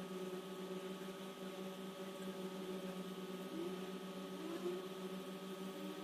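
Steady hum made of several constant tones, as from a fan or electrical appliance running. It stays even throughout, with no distinct strokes.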